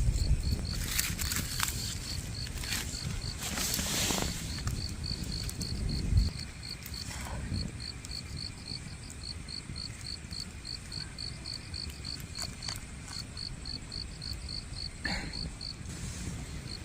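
An insect chirping in an even, high-pitched pulse, about three chirps a second. Scattered clicks and knocks and a low rumble are heard over the first six seconds; the rumble stops abruptly.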